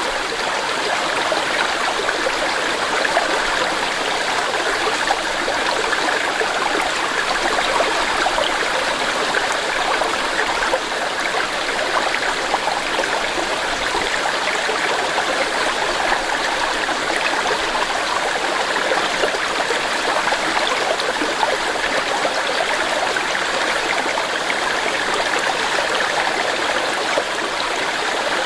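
Clear mountain stream running over rocks: a steady rushing and burbling of water, even throughout.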